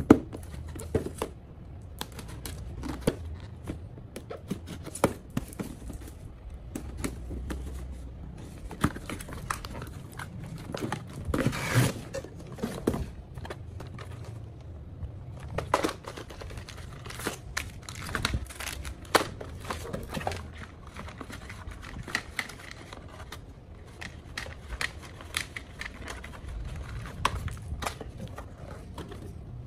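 A small cardboard box being opened and unpacked by hand: irregular taps, scrapes and crinkling of cardboard and plastic packaging, with a louder stretch of rustling about twelve seconds in.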